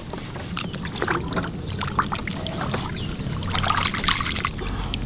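Lake water splashing and trickling at a wooden boat's side as a caught hampala is lowered in by hand and released, with scattered light knocks on the hull.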